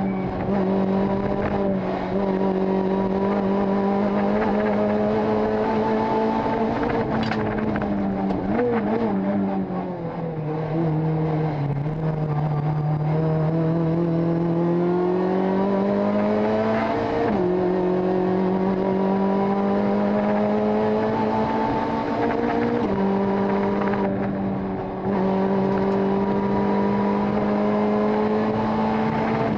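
Rally car engine heard from inside the caged cabin, running hard at high revs. The pitch sags about a third of the way in, climbs back, then jumps suddenly twice at gear changes.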